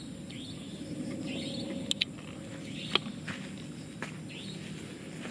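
Forest campsite ambience: a low steady rumble under a short animal call that repeats about every second and a half, with a few sharp clicks near the middle.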